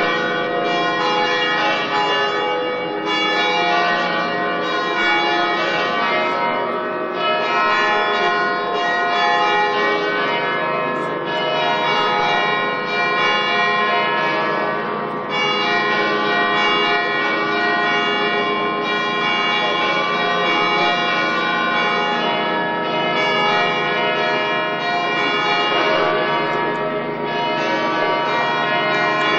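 Several church bells ringing together in a continuous peal, loud and unbroken, with the mix of bell tones shifting every few seconds.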